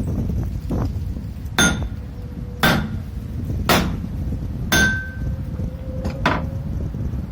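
Hammer blows on metal, about one a second, five loud strikes plus a lighter one near the end, some leaving a brief metallic ring, knocking the fan off an electric motor being scrapped for its copper. Low wind rumble on the microphone underneath.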